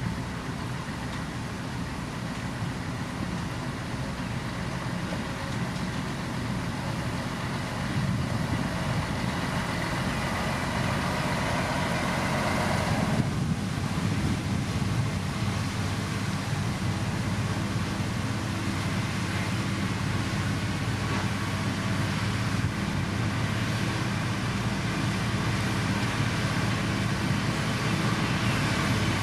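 Diesel engine of heavy road-building machinery running steadily, getting somewhat louder about eight seconds in.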